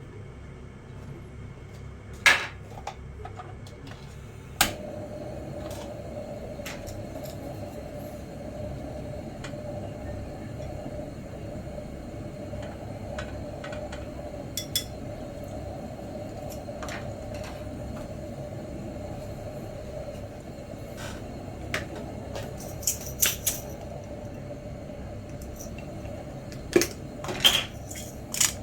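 Scattered clinks and knocks of dishes and utensils being handled, with a steady hum setting in about five seconds in, and a quick run of clicks near the end.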